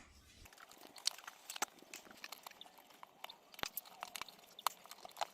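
Thin metal feeler gauge being worked under an iPhone 8 Plus battery to separate it from the phone, giving irregular sharp clicks and crackles as the stubborn adhesive lets go.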